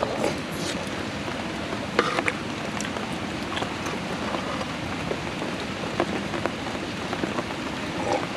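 Steady rain pattering, with scattered sharp clicks and drops over it; the loudest clicks come about two and six seconds in.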